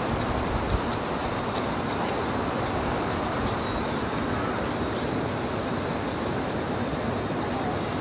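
Steady rushing of a shallow, rocky mountain stream.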